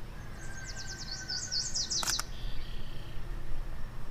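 A songbird singing a fast twittering phrase of high notes for about two seconds, then a few lower notes, with a single sharp click about two seconds in.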